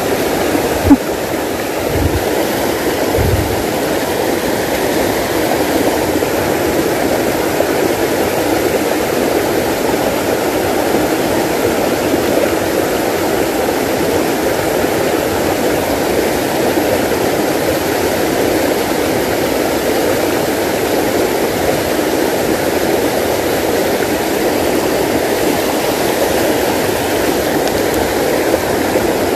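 Shallow rocky mountain stream rushing over rocks close by, a steady loud rush of water. A sharp click sounds about a second in.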